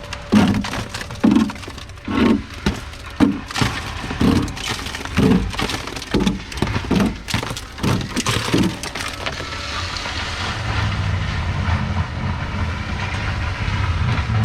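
Broken window glass being cleared out of a machine's cab frame: about nine or ten sharp crunching, scraping strokes, roughly one a second. For the last few seconds a steady mechanical noise takes over.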